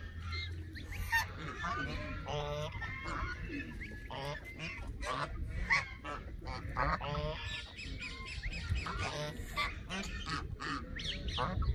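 A group of domestic geese honking and calling, many short calls overlapping and repeating over a low steady rumble.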